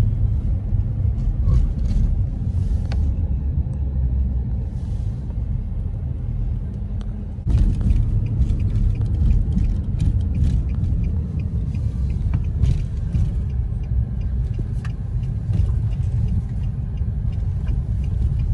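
Car cabin noise while driving: a steady low rumble of engine and road, with scattered small clicks and rattles. The level jumps up suddenly about seven and a half seconds in.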